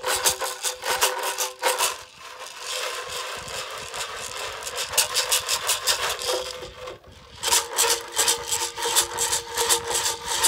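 Bear-hide rattles, steamed white ash shells covered in bear rawhide, shaken by hand in a quick rhythm, the beads striking inside the shell with a faint ringing tone. For a few seconds about two seconds in the shaking turns to a softer, steadier wash, then the sharp strikes return, with a short pause near the end.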